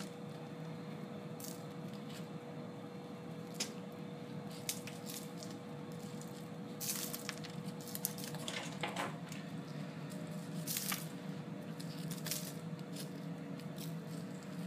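Steady low room hum with a faint steady tone that stops about two-thirds of the way through, broken by a few short scrapes and crunches of a knife and hands working in a bowl of packed snow topped with charred carrot and onion pieces.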